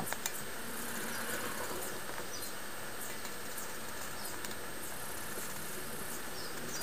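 Felt-tip Sharpie marker tip rubbing on a spinning aluminium pop can as a line is drawn around it, giving faint high squeaks about one or two a second over a steady hiss.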